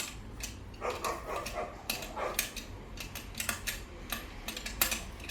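Scattered metallic clicks and knocks of tools and scooter parts being handled while the front wheel assembly of a Xiaomi e-scooter is refitted.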